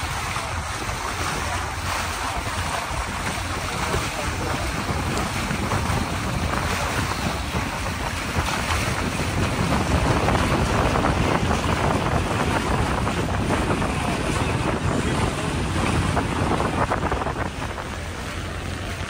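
Steady wind noise on the microphone, mixed with water rushing past the hull of a catamaran moving through the water.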